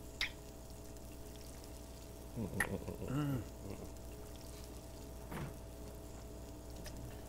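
Quiet kitchen room tone with a steady low hum. About two and a half seconds in comes a brief murmured, wavering voice sound, with a light click near the start and another about five seconds in.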